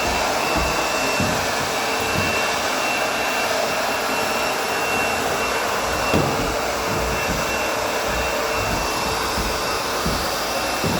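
Vacuum cleaner running steadily while stairs are vacuumed: an even rushing noise with a steady high whine over it.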